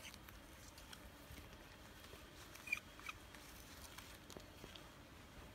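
Faint scraping and light clicks of a small spoon stirring turmeric in a glass bowl. One sharper tap comes about halfway through, with a smaller one just after.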